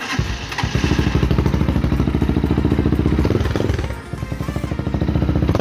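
Motorcycle engine starting and running loud through an exhaust with its silencer removed, warming up; the revs dip briefly about four seconds in, then it carries on.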